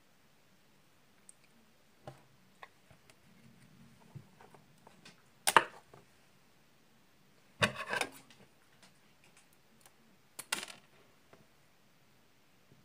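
Small objects being handled: scattered light clicks and taps, with three short scraping noises, the first about five and a half seconds in and the loudest, the second a little longer at about eight seconds, the third near ten and a half seconds.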